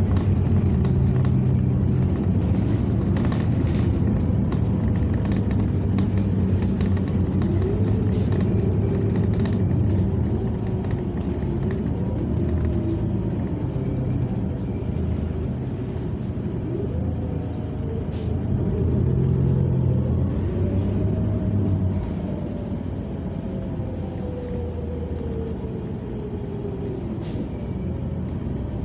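New Flyer XN40 natural-gas city bus under way, heard from inside: steady engine and road rumble with a whine that rises and falls in pitch, and a few light clicks and rattles. It eases off a little in the last several seconds.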